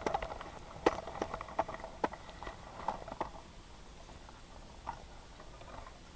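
Scattered light clicks and taps, about a dozen, thinning out after about three seconds.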